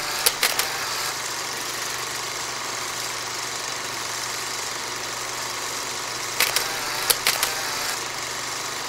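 A motorcycle engine running steadily, with a few sharp pops about half a second in and again around six to seven seconds in.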